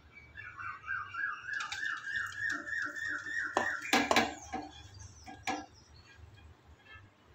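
A warbling tone in quick repeated rising sweeps, about four a second, for some three seconds, then a few sharp knocks of a steel spoon against an aluminium kadai while stirring.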